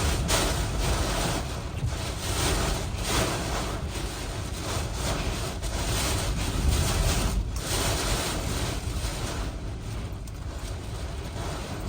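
Hurricane Milton's eyewall winds blowing hard, surging and easing in gusts, with a low rumble of wind buffeting the microphone.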